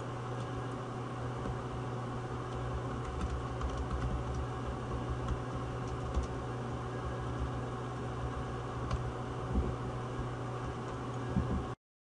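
Typing on a computer keyboard: irregular key clicks over a steady low hum, with a couple of louder clicks near the end. The sound cuts off suddenly just before the end.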